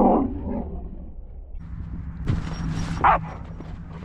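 Dog barking: one loud bark right at the start and a shorter, higher bark about three seconds in.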